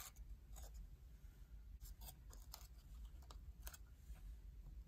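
Faint rustling and crackling of a folded colour-paper origami model being handled, with several short papery crackles scattered through.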